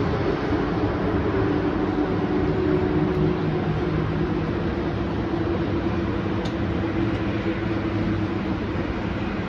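Steady rumble of city traffic from cars on a busy multi-lane road viaduct, with a low steady hum running through it.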